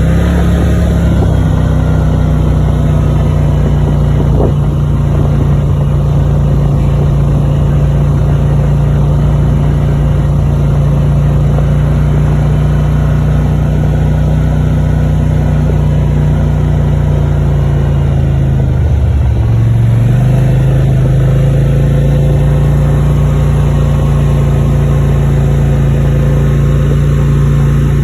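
Four-wheeler (ATV) engine running steadily while riding. About nineteen seconds in, the engine note dips briefly, then settles a little lower.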